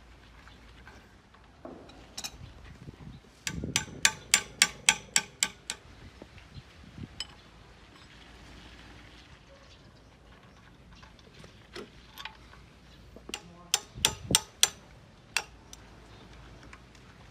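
Sharp taps or knocks in two quick runs, about four a second, each stroke ringing briefly: the first run of around nine strokes, the second of about six, then a single tap.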